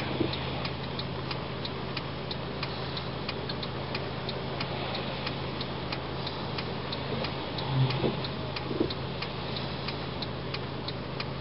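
Car's indicator flasher ticking evenly, about three clicks a second, over the steady low hum of the running engine. A brief low voice-like sound comes about eight seconds in.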